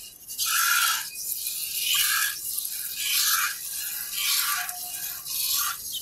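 Jets of milk squirted by hand from a water buffalo's teats hissing into a metal pot, about one squirt a second in a steady rhythm.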